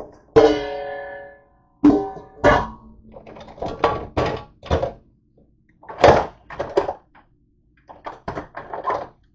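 Dishes being handled at a dish drying rack: a clatter of knocks and clinks from a glass and bowls set down and knocked together. The first clink, about half a second in, rings on with a clear tone for about a second.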